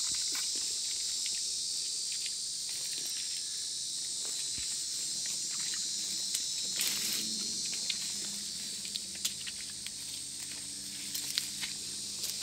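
Steady high-pitched chorus of insects, with footsteps and rustling as people push through dense brush, including a brief louder swish about seven seconds in.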